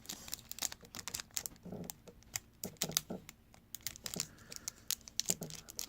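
Topps wrestling trading cards being handled and flipped through one by one: a run of light, irregular clicks and taps as the cards are shifted and knock together.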